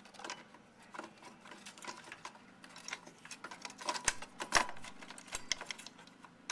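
Irregular clicks, knocks and rattles of a CPU cooler's fan and heatsink being worked loose from its clips and lifted off the processor, busiest about four to five seconds in.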